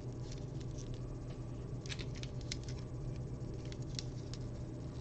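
Small plastic Lego pieces clicking and tapping as they are handled and pressed together, a scatter of faint short clicks with a cluster about two seconds in, over a low steady hum.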